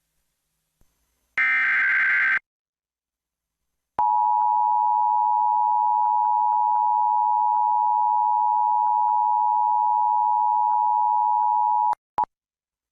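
Emergency Alert System header: a one-second burst of SAME digital data tones, then about two seconds later the steady EAS attention tone held for about eight seconds. The attention tone signals that an emergency warning message follows.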